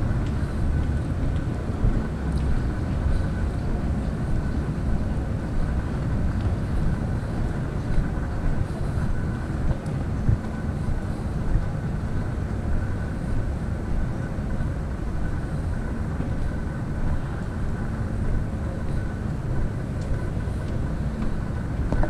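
Steady low rumble of city street noise with a faint steady high hum above it.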